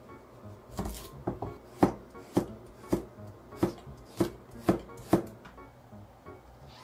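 Chef's knife slicing a carrot into rounds on a cutting board: about ten crisp knocks of the blade against the board, roughly two a second, which stop a little after five seconds in.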